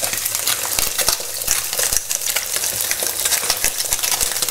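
Sea bass fillets frying skin side down in hot oil: a steady sizzle full of fine crackling spits.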